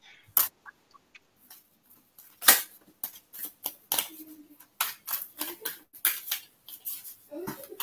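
A run of irregular sharp clicks and taps, about two a second, with a brief low hum near the end.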